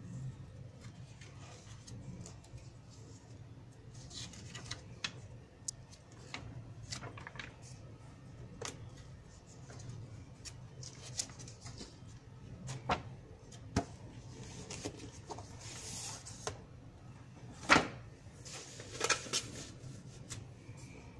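Glossy magazine pages being turned and handled by hand: repeated paper rustles and flaps with a few sharp taps, the sharpest about three-quarters of the way through, over a faint steady low hum.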